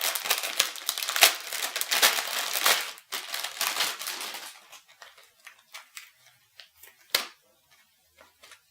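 Packaging crinkling and rustling as it is pulled open by hand: dense crackling for about four and a half seconds, then a few scattered light clicks and one sharp click near the end.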